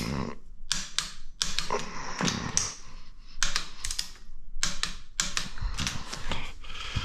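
Torque wrench ratcheting in short runs of irregular sharp clicks as engine bolts are tightened in a crisscross pattern to 33 foot-pounds.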